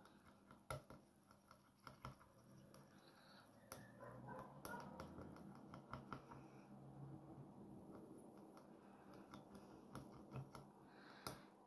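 Faint, irregular clicks of a spoon stirring wasabi into soy sauce in a small ceramic bowl, the spoon tapping against the bowl.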